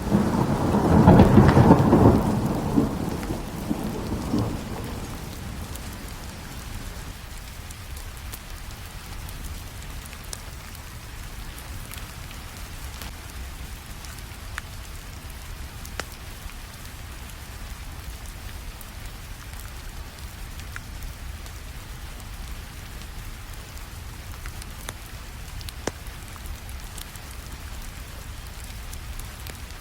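A roll of thunder rumbles loudly in the first few seconds and dies away, leaving steady rainfall with a few scattered sharp ticks.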